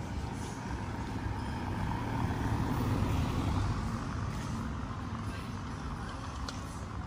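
A car passing by, its engine and tyre noise rising to a peak about three seconds in, then fading.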